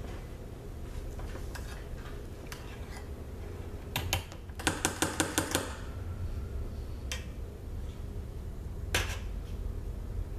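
Metal teaspoon clicking and tapping against the soap mold and its wire rack while spreading hot-process soap. There are a few single taps, and a quick run of about seven taps about four to five seconds in.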